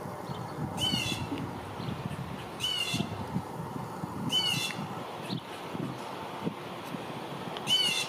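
Blue jay giving four short calls spaced about two seconds apart, calling for its mate.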